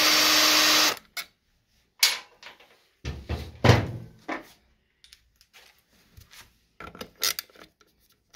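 Small cordless impact wrench running freely at a steady pitch without hammering, then stopping sharply about a second in. After it come scattered knocks and clatters of metal scooter parts being handled, the loudest a heavy thunk about three and a half seconds in.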